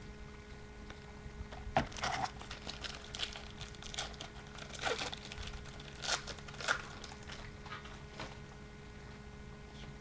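Foil wrapper of a trading-card pack crinkling and tearing as it is opened by hand, in irregular crackly bursts that start about two seconds in and die away near the end.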